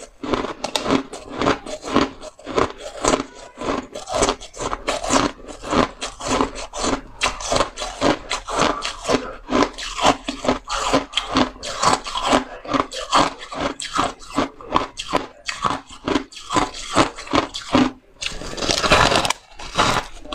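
Close-miked biting and chewing of a chunk of packed shaved ice: a steady run of crisp crunches, about two a second. Near the end, a longer scraping, grinding bite into the ice.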